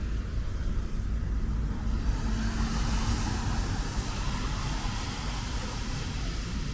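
Road traffic: a steady low rumble of engines and tyres, with a passing vehicle swelling about two to three seconds in.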